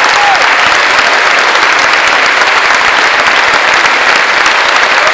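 A large theatre audience applauding, loud and steady, with a brief falling whoop right at the start.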